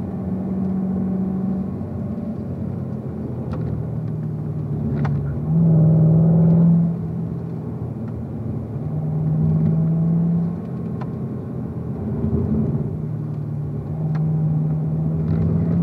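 Corvette V8 running at low revs in fourth gear, around 2,500–3,000 rpm, through a slow corner. It heard from inside the cabin and swells louder three times, near the middle and toward the end.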